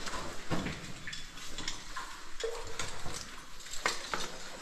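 Irregular clicks, clinks and knocks of metal caving gear, carabiners and hardware tapping against each other and the rock as a caver moves through a wet cave passage.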